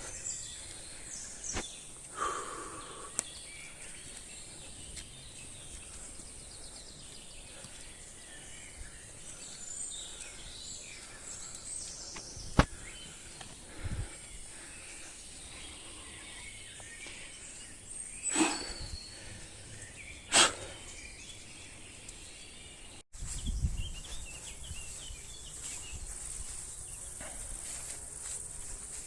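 Outdoor woodland ambience: a steady high hiss with a few short bird chirps and several sharp clicks or snaps. The background drops out briefly and changes abruptly about two-thirds of the way through.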